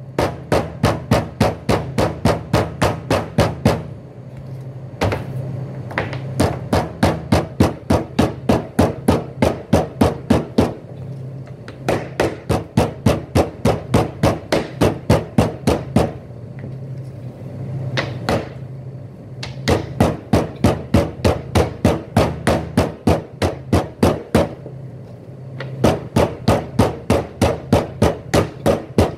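Metal meat-tenderizing mallet pounding raw beef ribs on a plastic cutting board, tenderizing the meat. Quick, regular blows at about four a second, in runs of several seconds with short pauses between them.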